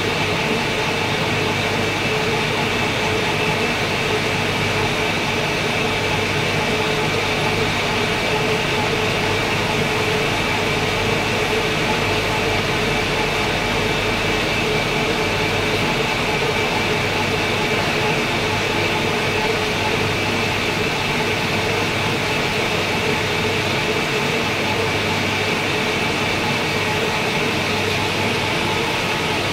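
Lathe machine running steadily: a continuous mechanical hum with a steady high tone above it.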